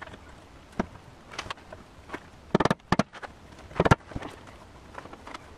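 Redgum boards and wooden dowels being handled and fitted together: light clicks and taps, then a few sharp wooden knocks with a brief ring, two close together about two and a half seconds in and one more near four seconds in.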